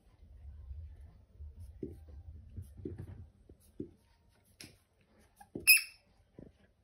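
Rubber squeaky toy ball bitten by a Labrador: soft chewing and mouthing noises with a few dull knocks, then a faint squeak and, near the end, one short loud squeak.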